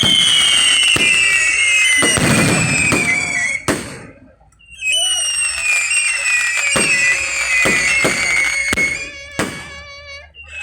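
Fireworks going off: repeated sharp bangs mixed with long whistling tones that slide slowly down in pitch, with a short lull about four seconds in.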